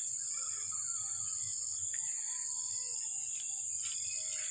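Insect chorus: a steady high-pitched drone, with faint chirps here and there.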